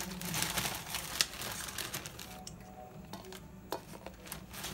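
Takeaway food packaging being handled and unwrapped: an irregular run of crinkling, rustling and small clicks, with one sharper click about a second in.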